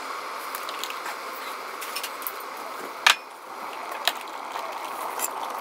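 Small clicks and knocks of things being handled on a kitchen counter, with a sharp click about three seconds in and a smaller one a second later, over a steady hiss.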